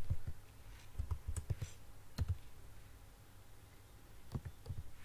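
Computer keyboard keystrokes: irregular typing clicks in short bunches, with a lull of about two seconds before a last bunch near the end.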